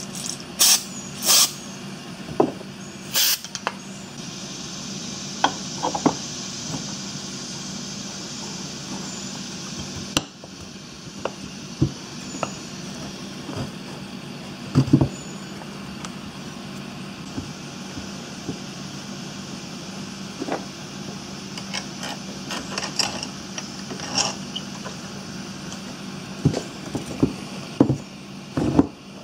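Scattered clicks, taps and knocks of metal parts being handled as a small electric starter motor's end plate and housing are fitted together, over a steady hum. The sharpest clicks come in the first few seconds and one knock stands out about halfway through.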